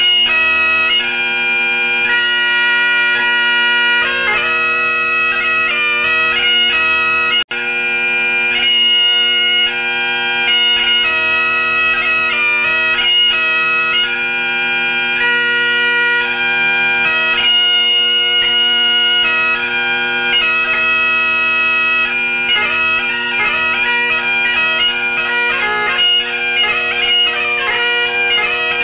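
Solo Great Highland bagpipe playing: the drones hold a steady tone under the chanter's melody. The sound cuts out for an instant about seven seconds in, and the chanter's fingering grows quicker and busier near the end.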